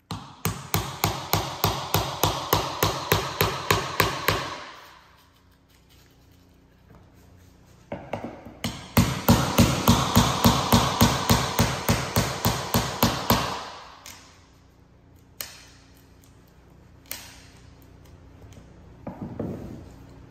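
Hammer blows, fast and even at about four or five a second, in two runs of several seconds with a pause between, then a few single knocks: breaking out the rest of a cut engineered hardwood floorboard.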